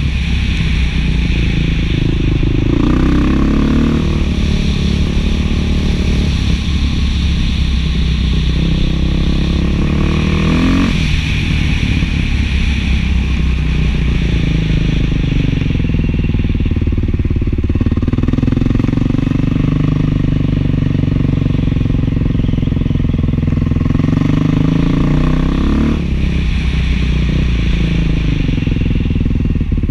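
Beta 500 dual-sport motorcycle's single-cylinder four-stroke engine through an FMF 4.1 muffler, running under load as it is ridden, with the revs rising and dropping several times.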